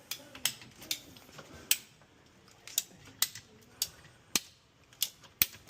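Hand pipe cutter cutting through a condensate drain line, giving about a dozen sharp, irregular clicks as it is squeezed through the pipe.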